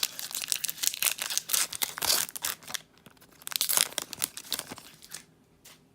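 Foil Pokémon trading-card booster pack being torn open and crinkled, in two spells of tearing and rustling that stop about five seconds in.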